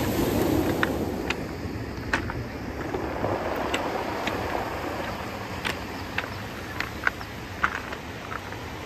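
Small waves washing up a beach of rounded cobblestones, the wash swelling near the start and again around three to four seconds in, with scattered sharp clacks of stones knocking together.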